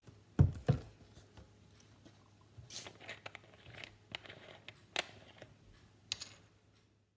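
Plastic water bottle handled and its screw cap twisted open: scattered clicks and crinkling of the thin plastic. Two dull thumps come about half a second in.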